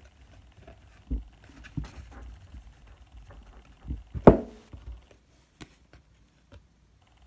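Trading cards being handled and shuffled, with several short knocks as cards are set down on a wooden tabletop. The loudest knock comes a little after four seconds in, followed by a few faint clicks.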